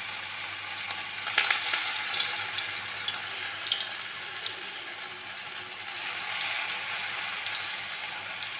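Pakora batter deep-frying in hot oil in a kadai: a steady sizzle full of fine crackling, swelling louder about a second and a half in.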